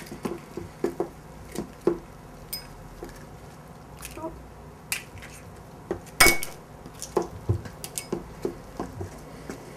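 A spoon stirring thick blini batter in a stainless steel mixing bowl, with wet squishing and irregular light clinks against the bowl, and one louder knock about six seconds in.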